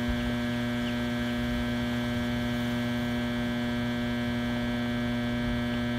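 Steady hum from a generator, a stack of unchanging tones that drowns the rest of the audio. The uploader says the generator was broken and being repaired.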